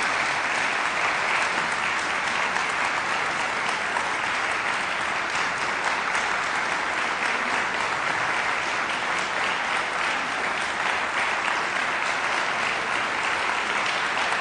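Concert audience applauding steadily, a dense even patter of many hands clapping.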